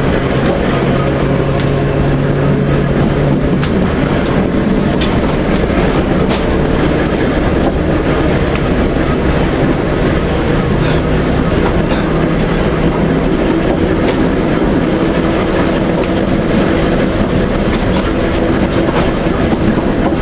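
Manx Electric Railway electric tramcar running along the track, heard from on board: a continuous rumble of wheels on rails with a steady motor hum and scattered clicks. The hum shifts to a higher pitch a little over halfway through.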